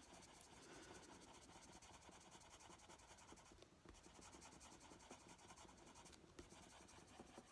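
Faint scratching of a Prismacolor coloured pencil scumbling small circles on paper, pressed fairly hard to build up colour. It lifts off briefly near the middle and again about three-quarters of the way through.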